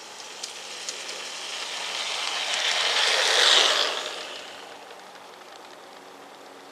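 Garden-railway model Alco diesel locomotive running along the track, its motor and wheels on the rails growing louder as it approaches, passing close about three and a half seconds in, then fading away.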